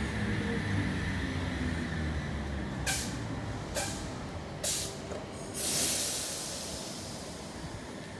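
Sydney Trains H-set (Oscar) electric train at a standstill: its low motor hum dies away at the start, then three short hisses of air about a second apart and a longer, louder hiss of air that slowly fades.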